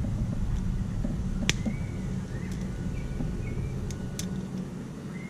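A few sharp clicks from hand tools working a spark plug wire terminal: one about a second and a half in, then two in quick succession about four seconds in, over a steady low hum.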